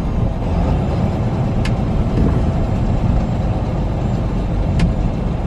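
Semi truck's diesel engine and road noise heard from inside the cab while driving at low speed, a steady low rumble. Two faint clicks are heard over it.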